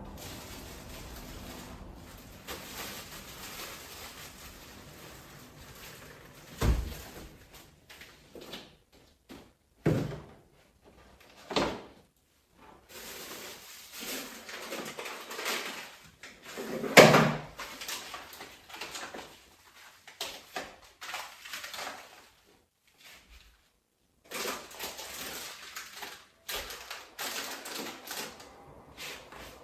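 Household handling noises: a few sharp knocks and thuds, the loudest about seventeen seconds in, between stretches of rustling and shuffling, as of cupboard doors, drawers and things on shelves being moved.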